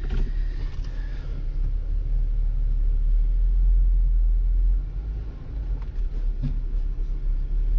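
Jeep Gladiator's engine running low and steady as the truck creeps the travel trailer forward onto a leveling block. There is a brief knock about six and a half seconds in.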